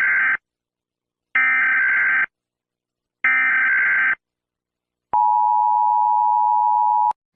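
Emergency Alert System tones. First come the screeching digital data bursts of the SAME header: the tail of one, then two more, each about a second long with a second's gap between. Then the steady two-tone EAS attention signal sounds for about two seconds and cuts off suddenly.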